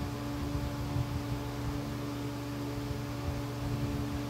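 Steady low background hum with a faint constant tone, and a few faint small knocks from handling.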